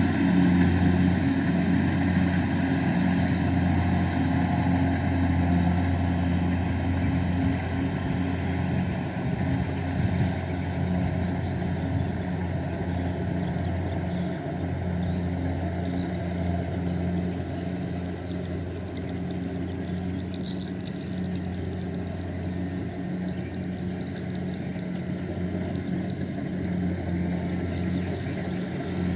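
Rice combine harvester's diesel engine running steadily under load while harvesting paddy, a continuous low hum that slowly fades a little.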